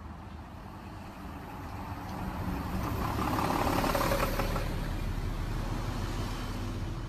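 A road vehicle passing by over a steady low rumble. Its sound swells to a peak about four seconds in and then slowly fades.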